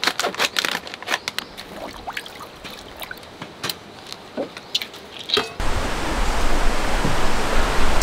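Light clicks, clinks and crinkles of a metal pot and its wire handle being handled as paper is laid over the raw chickens in it. About five and a half seconds in this gives way to the steady rushing of a mountain stream.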